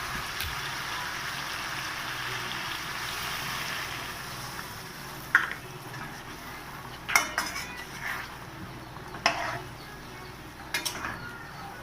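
Chicken curry hissing in a hot pan for the first few seconds, where water has just gone in, then a metal spoon stirring and clinking against the pan several times.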